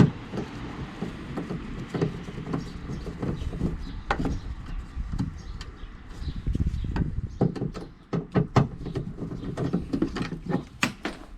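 Irregular clicks, knocks and light rattles of a hand and tool working at the plastic inner boot trim of a car, freeing the screw and liner cover. The knocks come thicker near the end.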